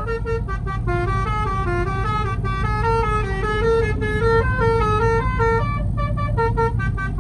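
Basuri telolet musical horn playing a quick tune of short stepped notes, over a steady low engine rumble.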